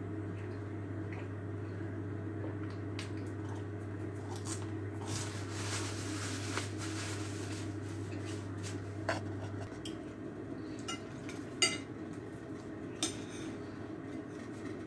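A person chewing garlic bread close to the microphone, with a soft napkin rustle near the middle and a few sharp clicks later on, the loudest about three-quarters of the way through. A low steady hum underneath stops about two-thirds of the way in.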